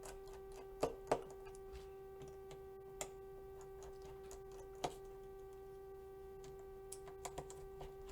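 Small sharp clicks of a Phillips screwdriver working tiny screws out of a phone's internal frame and setting them down, scattered and irregular, with a few close together near the end, over a steady faint hum.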